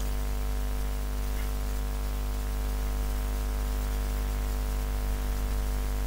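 Steady electrical hum with a stack of even overtones and a hiss over it, unchanging throughout.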